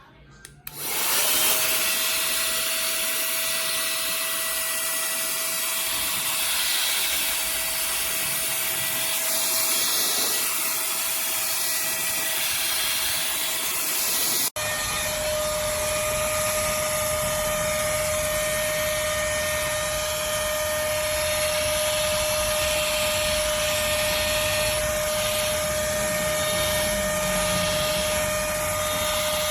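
Goweto 3-in-1 keyboard vacuum and air duster running: a small high-speed motor spinning up about a second in, then a steady high whine over a rush of air. A brief break comes about halfway.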